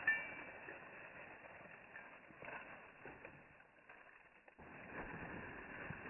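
Faint rustling of feet kicking and shuffling through dry fallen leaves, with a short high chirp right at the start.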